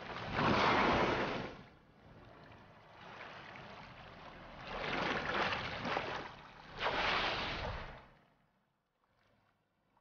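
Humpback whales surfacing at sea: three loud rushes of water and spray, about a second in, around five seconds in and around seven seconds in, over a lower wash of sea. It falls nearly silent near the end.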